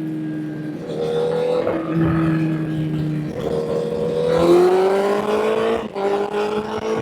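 Honda CBR1000 inline-four engine under way. It slows with a falling note, steps up in pitch at about 1 s and again at about 3.5 s as it is shifted down, then revs up with a rising note from about 4.5 s, with a brief break near 6 s as a gear is changed.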